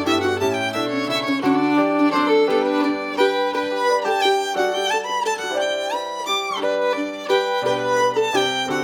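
Background music led by a violin playing a melody over a steady bass line.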